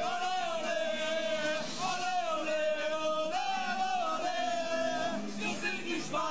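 Small group of football fans chanting a song together in long, drawn-out notes, with a few looser shouts near the end.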